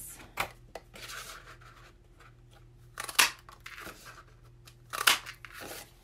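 Hand-held craft punch (Stampin' Up! Sprig Punch) punching sprig shapes out of card stock: two sharp snaps about two seconds apart, with smaller clicks and paper handling between them.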